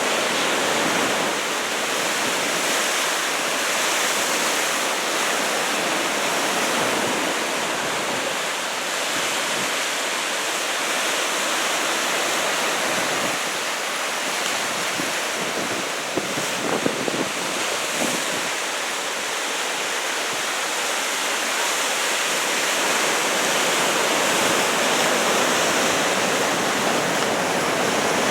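Heavy ocean surf from a typhoon swell: a steady rush of waves breaking and washing on the shore. Near the middle there are a few brief ticks.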